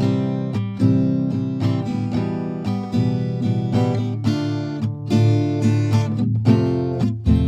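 Background music on acoustic guitar, plucked and strummed chords with a steady beat.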